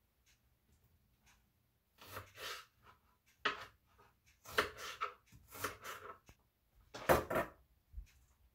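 A knife cutting through a crisp bell pepper held in the hand, making about five short crunching, scratchy cuts. The loudest cut comes near the end.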